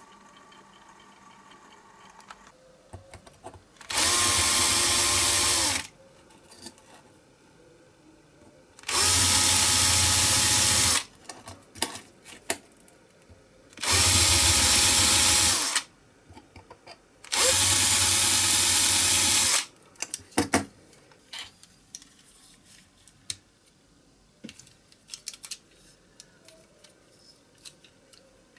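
Cordless drill running in four steady bursts of about two seconds each, drilling out the rivets that hold a diecast toy car's metal base. Light clicks and taps of small metal parts being handled follow.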